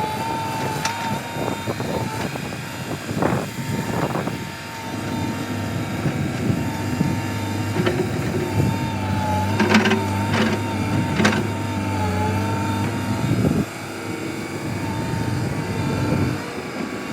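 A machine engine running, with a steady wavering whine above it and a few sharp knocks.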